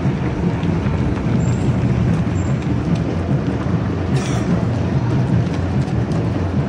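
A steady low rumble with the light, irregular patter of many runners' footsteps on the road.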